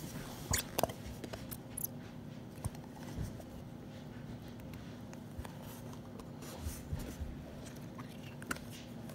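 White glue being squeezed from a bottle into a bowl for slime, heard as faint scattered clicks and soft squelches over a low steady hum.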